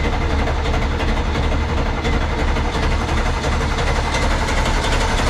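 The Phoenix 29 boat's marine engine idling steadily, having just started.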